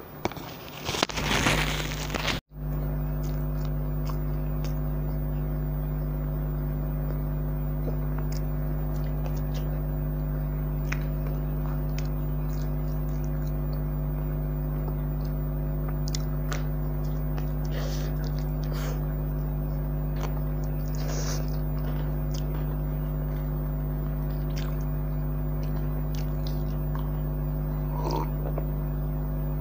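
Close-up chewing and biting into a soft, cream-filled bun, with a steady low hum starting about two seconds in and running under it. Near the end, a sip of cola from a glass.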